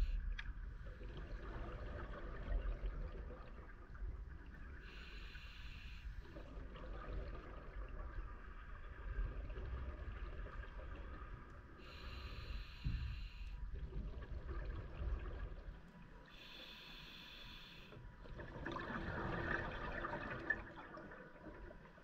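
Scuba diver breathing through a regulator underwater: three short hissing inhales about six seconds apart, with bubbling exhales between them. The loudest exhale comes near the end.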